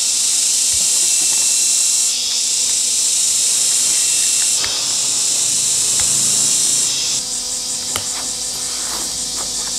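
Loud, high-pitched steady buzzing of a summer insect chorus, stepping in level a few times. In the second half come faint short clicks and crunches of someone chewing crispy fried food.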